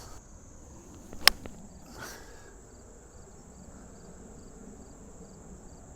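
A golf club strikes the ball once with a sharp, crisp click about a second in, over a steady high trill of insects, likely crickets.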